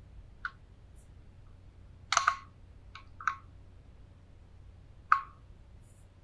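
Fingers clicking and tapping on a Klean Kanteen 20oz insulated TKWide stainless bottle and its plastic lid as it is handled: about half a dozen sharp clicks with a brief ring, the loudest a quick cluster about two seconds in and a single one about five seconds in.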